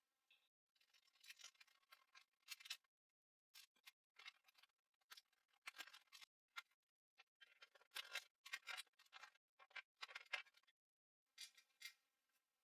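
Faint, irregular clicking and rustling of PC power and data cables being handled and their connectors pushed into place, in short scratchy bursts with brief pauses.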